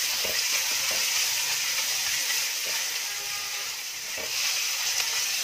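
Sliced onions sizzling steadily in hot desi ghee in a wok, softening, while they are stirred now and then with a silicone spatula.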